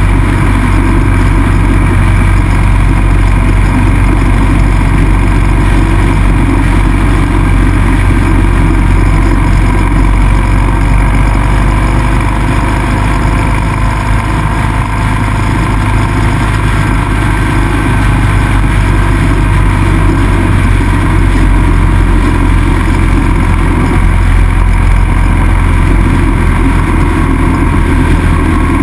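Cruiser motorcycle running steadily at road speed, its engine note low and even under a constant wash of wind and road noise.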